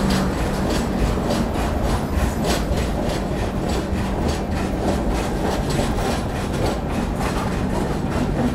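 Indian Railways passenger coach rolling out of a station, its wheels clicking over rail joints and points with a steady rumble beneath, heard through the coach's open doorway.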